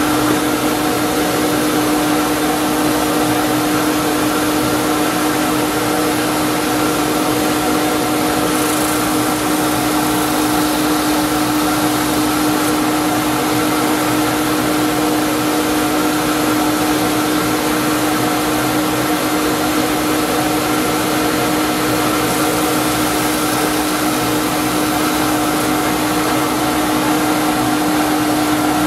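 Shop vacuum running at a suction nozzle beside a drill press whose plug cutter is boring wooden plugs: a constant hum with a rushing of air, steady throughout.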